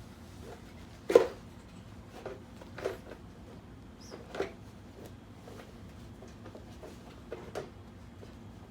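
A few separate knocks and clunks of tools or parts being handled and set down: the loudest about a second in, smaller ones over the next few seconds and a pair near the end.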